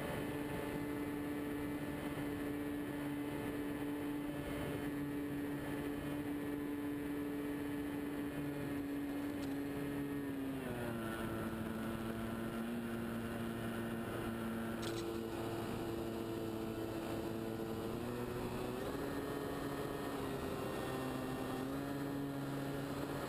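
Onboard sound of a radio-controlled scale de Havilland Tiger Moth's motor and propeller in flight, a steady hum. About ten seconds in the pitch drops as the revs come down, and it rises again a few seconds before the end.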